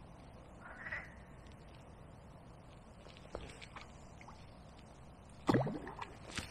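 A single short, harsh animal call about five and a half seconds in, over faint scattered clicks and rustles.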